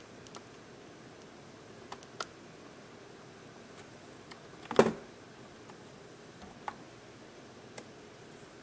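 A few scattered keyboard keystrokes, with a louder clatter of keys about five seconds in, over a faint steady room hum.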